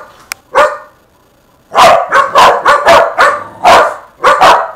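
Shetland sheepdog barking loudly: one bark, then after about a second's pause a rapid string of sharp barks, about three a second.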